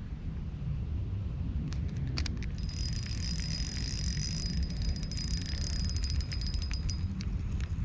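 Spinning reel being cranked: a steady high whir with rapid clicking from about two seconds in until near the end, over a steady low rumble.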